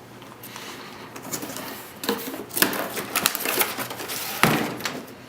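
A small cardboard box being opened and its contents handled: rustling and scraping with many irregular clicks and taps, and one sharp knock about four and a half seconds in.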